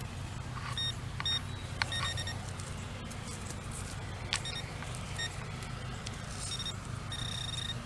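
Metal detector sounding short, high beeps a second or more apart as the coil is swept over the ground, then a longer steady tone near the end, over a steady low hum.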